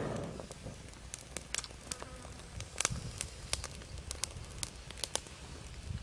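Small open twig fire crackling with sharp, irregular pops as a bird's feathers are singed off in the flames, with a brief rush of flame at the very start.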